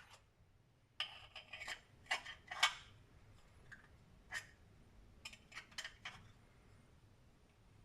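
Light clicks and rattles of small 3D-printed plastic parts and magnets being handled and set together: a cluster of clicks about a second in, a single click in the middle, then another short run of clicks.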